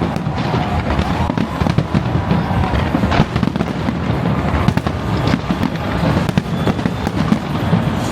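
Fireworks going off in rapid succession: dense, overlapping bangs and crackling with no pause.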